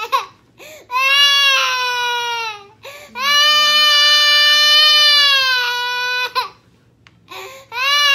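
A toddler crying loudly: three long, high-pitched wails with short catches of breath between them, the middle wail the longest.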